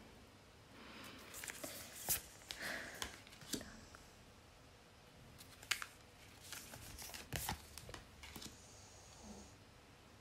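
Tarot cards being drawn from the deck and laid out on a wooden table: faint rustling and sliding of card stock, with a few light, sharp taps as cards are set down.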